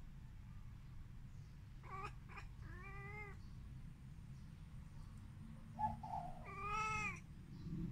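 Siamese cat calling up at birds: a couple of quick chirps about two seconds in, a short meow, then a longer meow near the end. A short sharp noise comes just before the last meow, over a steady low rumble.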